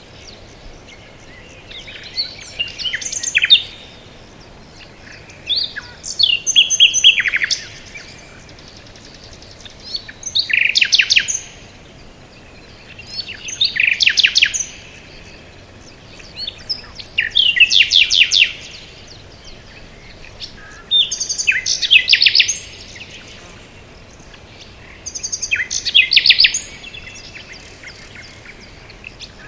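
A songbird singing, seven short trilled phrases in a row, one about every four seconds, over a faint steady background hiss.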